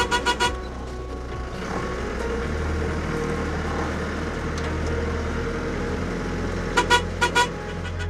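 Car horn tooted in short beeps to call the dogs, a few at the start and four quick ones about seven seconds in, over the steady rumble of the engine and tyres on a dirt track heard from inside the cab.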